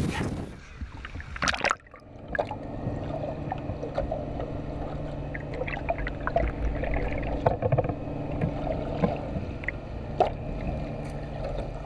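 Steady hum of a boat's engines under way, with scattered light knocks and clicks on deck.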